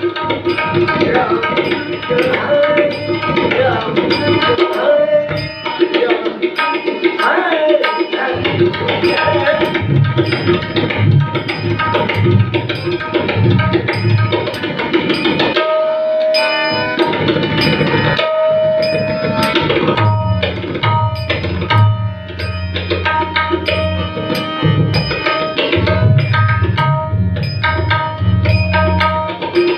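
Instrumental music: drumming in a steady rhythm under held melodic notes.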